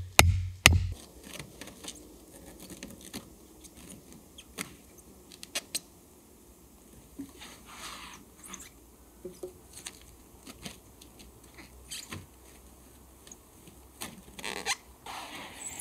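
The last beats of electronic music end about a second in. Then come scattered small clicks, taps and rustles of hands working at a log bed frame, with longer crinkling rustles of plastic sheeting near the middle and again near the end.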